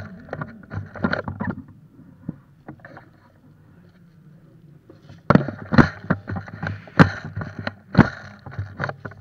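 Sharp knocks and clatter at an uneven pace, over a low steady hum. There are a few knocks at first, a lull in the middle, then about two knocks a second in the second half.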